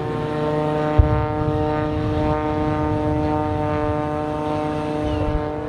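Propeller aircraft engine running at a steady pitch as the plane flies its display. A short low thump about a second in.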